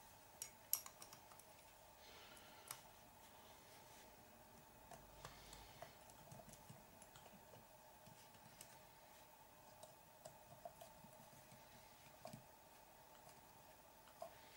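Faint, scattered light clicks and taps of small plastic and metal RC truck parts being handled and screws turned with a hand hex driver, over a faint steady hum.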